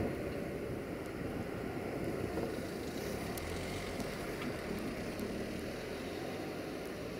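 Electroputere LDE2100 (060-DA) diesel-electric locomotive's Sulzer engine running as it approaches, heard far off as a steady low rumble.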